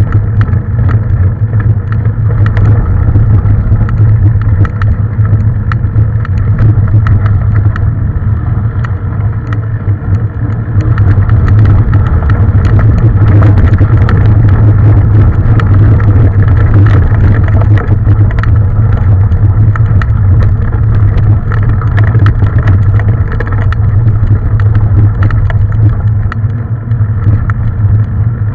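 Mountain bike rattling over rough trail at riding speed: a steady low wind rumble on the microphone with many small knocks and clatters from the bike throughout.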